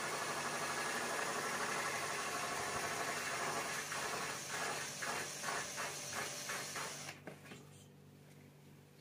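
Cordless drill-driver motor running under load as it drives a screw through corrugated plastic roofing sheet. It runs steadily for about four seconds, then in a series of short pulses, and stops about seven seconds in.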